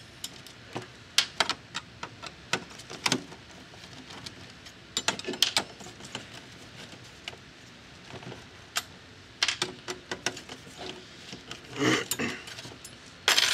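Scattered sharp clicks and metallic taps, irregular and in small clusters, from a screwdriver and the metal back plate of a Coinco Mag bill validator being worked loose, with a brief scrape about twelve seconds in.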